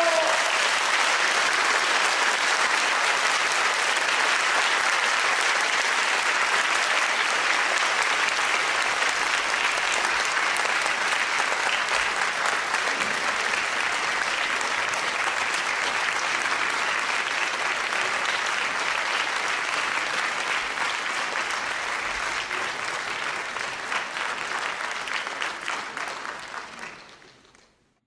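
Crowd applauding with steady, dense clapping, fading out near the end.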